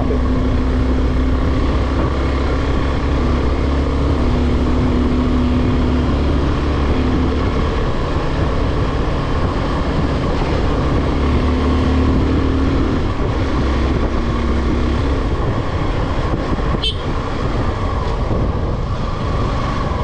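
Motorcycle engine running steadily while the bike is ridden along a hill road, its note wavering slightly, under a steady rush of wind and road noise.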